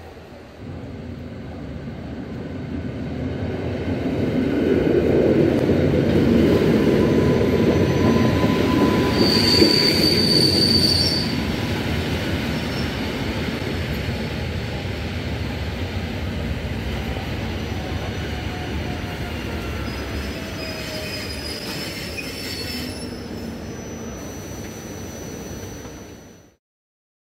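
Modernised EN57AKM electric multiple unit running into the station and braking to a stop, with a brief high brake squeal as it halts. It then stands at the platform with a steadier, gradually fading rumble.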